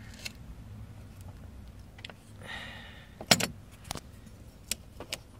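Rubber hose cutter squeezed shut through a rubber door weather-strip tube: a short rasp about two and a half seconds in, then a few sharp clicks, the loudest just after.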